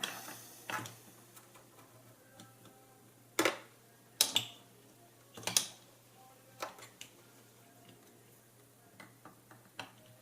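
Irregular clicks and knocks of small metal parts and a tool as a tiny nut is worked onto a flip clock motor assembly, with a few louder knocks in the middle.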